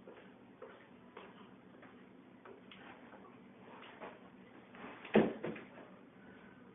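Faint, irregular clicks and ticks, then one loud thump a little after five seconds in.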